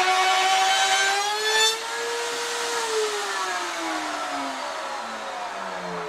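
Router in a router table with a 3/4-inch straight bit, cutting the ledge that beehive frames rest on. It gives a loud, steady whine under load. Just under two seconds in the cut ends and the pitch rises briefly as the motor frees up, then from about three seconds in the pitch falls steadily as the router winds down.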